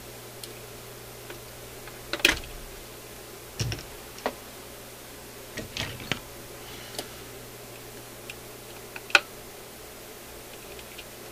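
Irregular clicks and light knocks of small metal record-changer parts being handled and wiped on a paper towel, the sharpest about two seconds in and about nine seconds in, over a low steady hum.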